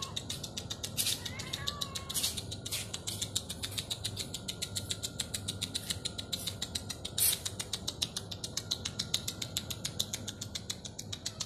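A fast, even ticking, many ticks a second, with a louder click about seven seconds in. A stray cat gives a short meow about a second and a half in.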